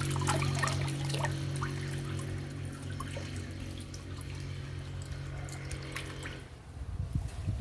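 Water splashing and trickling in a cement tank crowded with thrashing walking catfish, with small irregular splashes. Steady background music runs underneath and stops about six and a half seconds in.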